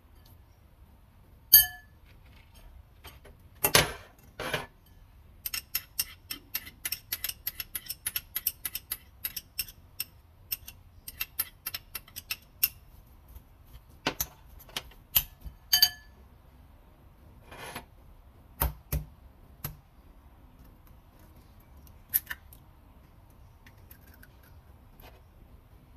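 Metal spoon clinking and tapping against a ceramic bowl while stirring corned beef and chopped spring onions, with a run of quick taps for several seconds in the middle and scattered single clinks before and after.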